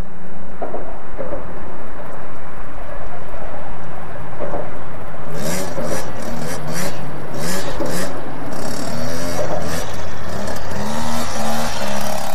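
Small children's dirt bike engine running at idle, then revving up and down again and again from about five seconds in as the throttle is blipped.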